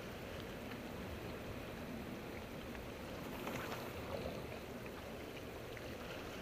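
Steady wash of ocean water with small waves lapping, with a few faint ticks.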